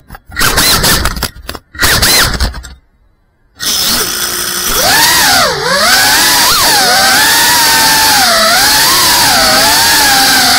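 GEPRC CineLog35 ducted cinewhoop quadcopter's motors and propellers, heard from its onboard camera: choppy bursts of throttle with short rising and falling whines for the first few seconds, a brief drop to near silence, then from about three and a half seconds a steady whine whose pitch wavers up and down with throttle.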